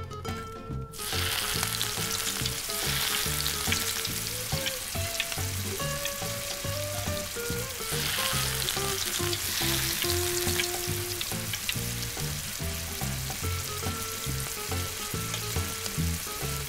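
Battered puffer fish pieces deep-frying in hot oil in a miniature metal wok: a dense crackling sizzle that sets in about a second in and keeps going steadily.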